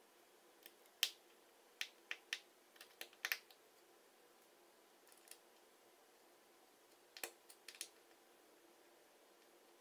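Small, sharp clicks and taps of tiny screws, a small screwdriver and a thin metal shield being handled inside an opened iPhone 5. They come in two clusters: several in the first few seconds, then a few more about seven seconds in.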